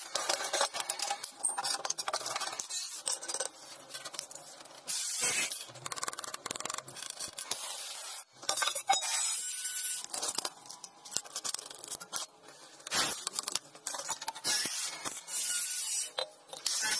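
Electric arc welding on steel crackling and sputtering, in several short shots with a sudden cut about eight seconds in.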